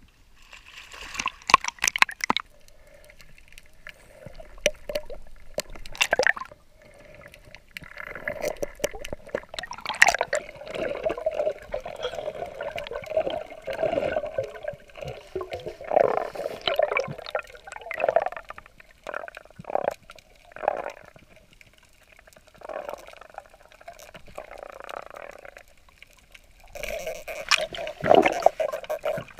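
Water sloshing and gurgling, muffled, heard through a camera in an underwater housing as a diver swims. There is a sharp splashy burst about a second in.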